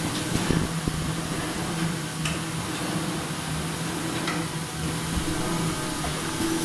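Automatic flipping machine for laminated corrugated board running steadily, a constant mechanical hum and whirr with short hissing sounds about every two seconds.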